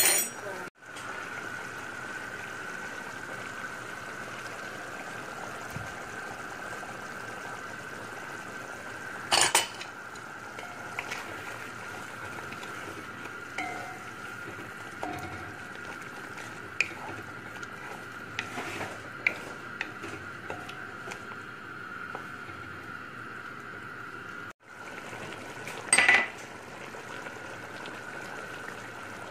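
Stirring in a metal cooking pot of chicken curry with a wooden spoon, with small scattered ticks and two loud sharp clinks against the pot, one about a third of the way in and one near the end, over a steady high-pitched hum.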